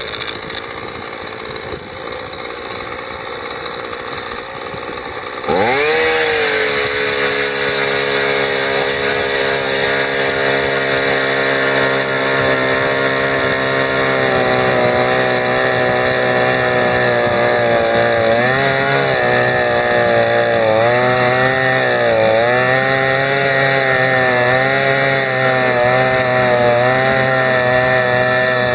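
Gas-powered ice auger idling, then revved up sharply about five seconds in and held at high speed as it drills into the ice. In the last third, the engine speed repeatedly dips and recovers as the auger loads up cutting through ice about three feet thick.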